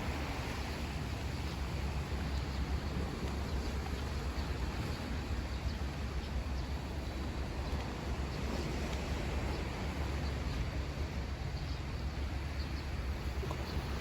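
Steady wind rumbling on the microphone over the wash of sea surf.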